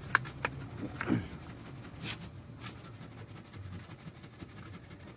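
Sharp clicks and scrapes of a thin blade and hand tools working the edge of a truck radiator's top tank and header, mostly in the first three seconds, over a low steady background hum.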